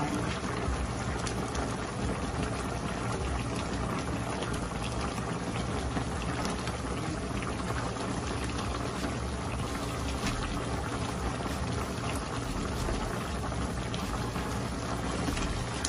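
Chicken and broth bubbling at a steady simmer in a frying pan, with Japanese curry roux blocks melting in.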